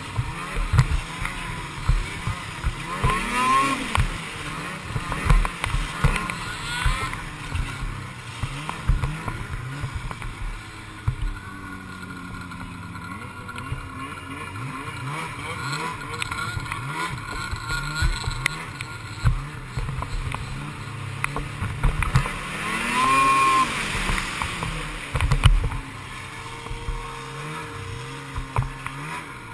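Snowmobile engine running under throttle, its pitch rising and falling again and again as the sled speeds up and slows over the snow. In the middle it eases to a lower, steadier note, then revs up again with a climbing whine a little after two-thirds of the way through.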